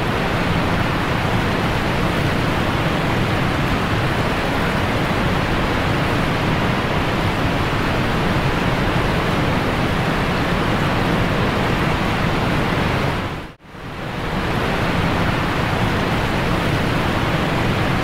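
Loud, steady rushing noise like static or rushing air, with no voice or tune. It drops out for a moment about 13 seconds in, swells back, and cuts off suddenly at the end.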